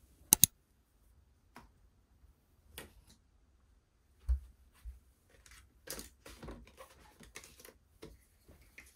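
A sharp double click about a third of a second in, then a soft thump and light handling sounds as a phone, a notebook and a pen are picked up from the bed and bedside table, with bedding and paper rustling.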